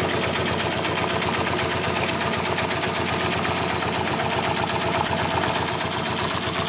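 Two-needle post-bed compound-feed industrial upholstery sewing machine stitching a double seam through heavy sheet material at a fast, even rate, a continuous rapid clatter of needle strokes.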